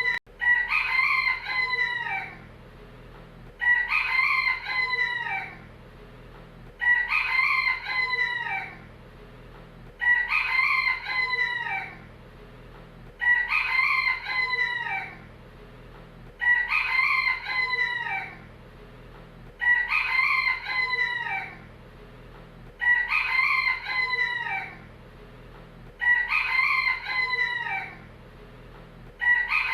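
Rooster crowing cock-a-doodle-doo, the same multi-part crow repeated about every three seconds, each one falling in pitch at its end.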